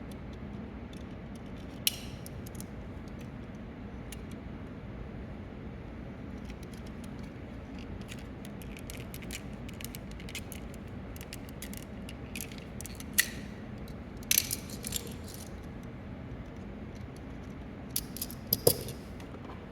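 Scattered light clicks and clinks of small hard parts being handled, most of them in two short clusters in the second half, over a steady low hum.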